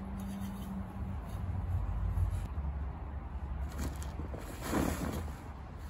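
A brief rustle about five seconds in as a handful of raked dead lawn thatch is dropped into a woven garden waste bag, over a low steady rumble.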